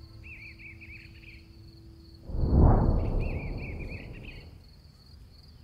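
Nature ambience: a steady high insect trill with a bird giving runs of quick repeated chirping calls, twice. About two seconds in, a held low musical tone stops and a deep rush of noise swells up, then fades over the next two seconds.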